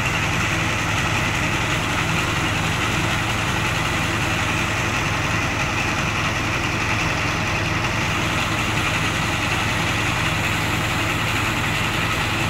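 Diesel engine of a mobile rice mill running steadily, driving the huller: an even drone with a constant hiss of grain and machinery over it.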